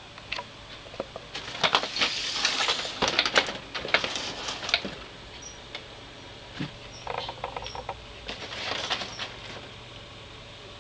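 A hand rustling, scraping and tapping against a cardboard box: two irregular bursts of scratches and clicks, the first longer and louder, over a faint steady low hum.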